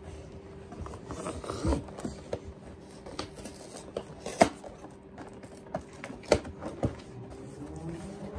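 Hands handling a cardboard gingerbread house kit box: scattered taps and knocks with some rustling, the sharpest knocks about four and a half and six seconds in, over a faint steady hum.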